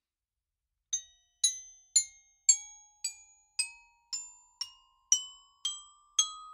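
Xylophone played one note at a time, about two strikes a second, each note ringing briefly and fading, climbing steadily up the scale.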